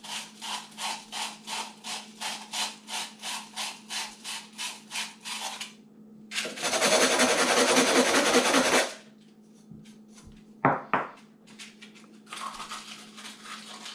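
Sandpaper rubbed by hand around the cut edges of a metal can to take off burrs. First come quick, even back-and-forth strokes, about three a second. About halfway there is a longer continuous rub, the loudest part, then two sharp taps, and softer rubbing near the end.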